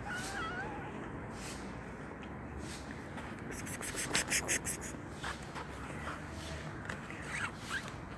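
A black cat gives a short, wavering meow at the start. About four seconds in comes a quick run of sharp rustling clicks, the loudest sound, followed by a few fainter short sounds.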